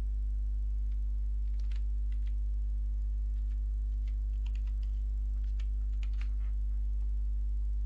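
Computer keyboard typing: irregular key clicks as a line of text is typed. They sound over a steady low hum.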